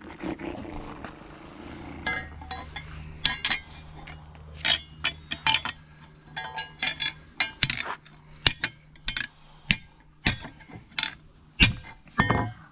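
A claw hammer striking a metal strip laid on an iron cobbler's shoe last, bending it to shape. The metallic blows come irregularly, one or two a second, each with a short ring, starting about two seconds in.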